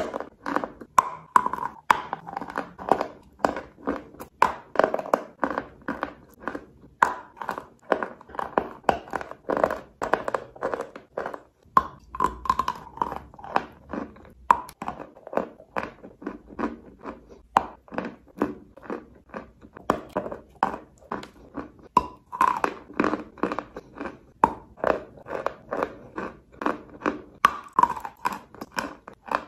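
Sticks of chalk being bitten and chewed: a dense run of dry crunches, about two or three a second.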